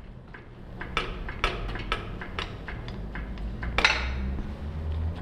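Metal clicks and clinks from a bushing press tool as it forces a rubber control-arm bushing out of its seat, with a louder metallic knock about four seconds in.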